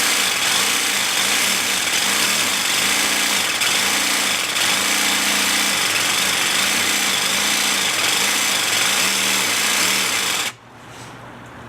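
Craftsman jigsaw with a Bosch diamond-grit tile blade cutting through tile, a loud grinding rasp with the motor speed rising and falling in repeated cycles. It stops abruptly about ten and a half seconds in.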